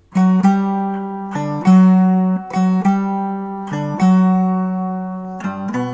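Background instrumental music of plucked string notes over a low held bass, beginning abruptly with a sharp first note.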